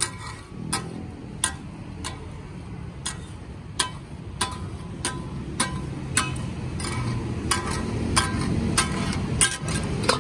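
Two steel spatula blades clacking against a large steel griddle (tawa) as the cook chops frying offal finely for taka tak. Each strike is a sharp ringing clack, about one or two a second, coming faster in the last few seconds, over a steady low rumble.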